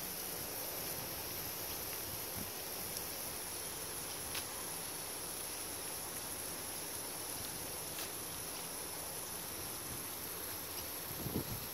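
Steady hiss of falling water spray, with a steady high-pitched insect drone over it and a couple of faint ticks.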